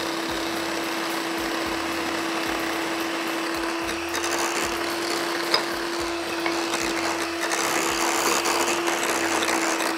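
Electric hand mixer running steadily at one constant pitch, its beaters whirring through cream cheese and curd cheese in a glass bowl. There is a single sharp knock about five and a half seconds in.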